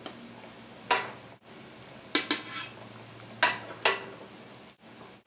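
Metal tongs clinking against a stainless steel pan while chicken pieces are lifted out of the broth: about six sharp clinks, a few ringing briefly.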